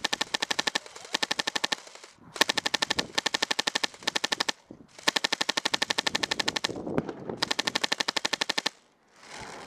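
An HPA airsoft light machine gun, a Classic Army Stoner run by a PolarStar Jack engine, firing full auto in five bursts of about one to two seconds each: rapid, even pneumatic shot clicks with short pauses between them.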